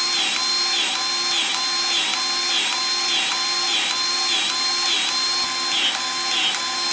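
Milwaukee cordless grease gun running continuously, pumping grease into a water-filled tank for a hydrostatic pressure test. It is a steady motor whine that sags briefly about twice a second as the pump works against the rising pressure.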